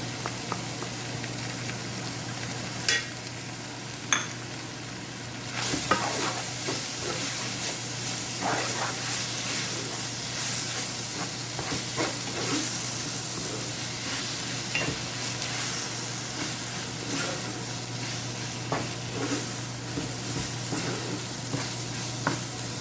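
Minced chicken and onion with soya bean paste and chili powder sizzling in a hot pan as they are stirred. The utensil clicks and scrapes against the pan now and then, and the sizzle gets louder about five seconds in.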